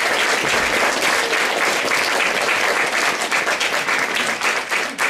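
Theatre audience applauding, a steady dense clapping.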